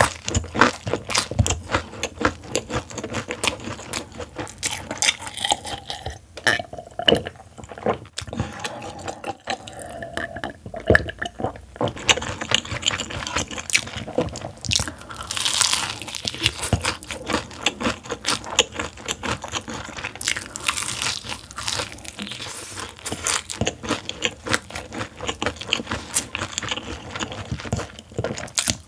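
Close-miked crunching and chewing of crispy soy-honey-glazed fried chicken (CJ Gourmet Sobaba chicken), whose sauce coating is itself crisp. There are many sharp crunches in quick succession.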